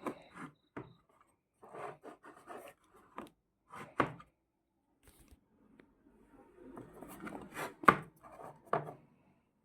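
Watch packaging being handled and worked at to get it open: scattered scrapes, rubs and taps on the box, with a busier stretch of rubbing and a few sharp clicks in the last third.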